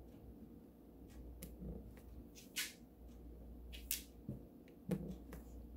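Diamond painting pen tapping resin drills onto the sticky canvas: a few faint, sharp clicks over a low steady hum.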